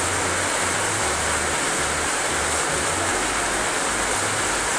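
Steady rain falling, an even hiss of drops on the paving and garden.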